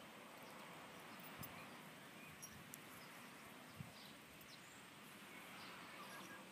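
Near silence: a faint background hiss with a few faint, short chirps and a couple of soft taps.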